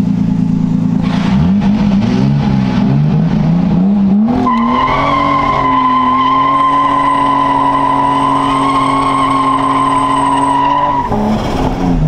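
Turbocharged RB20DET inline-six of a Nissan Laurel revving up from about a second in, then held at high revs while the tyres spin in a burnout, giving a steady high squeal for about six seconds before the revs drop near the end. Heard from inside the cabin; the engine pulls cleanly now that new coil packs have cured its misfire.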